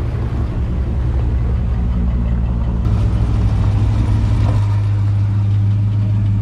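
Classic car engines running at low speed close by, a steady low rumble whose note changes about three seconds in and again a little later.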